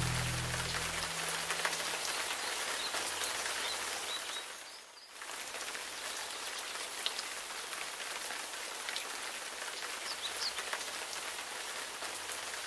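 Background music fading out in the first second or two, then a steady, even hiss of water, such as a small stream splashing over stones or falling rain, which drops away briefly about five seconds in.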